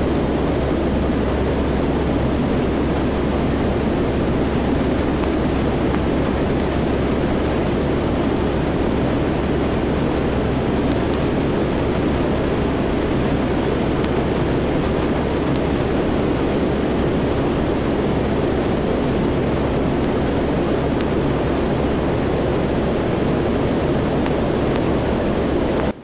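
Lockheed C-130 Hercules's four turboprop engines and propellers heard from inside the aircraft in level flight: a steady low drone with a broad rush of airflow noise over it.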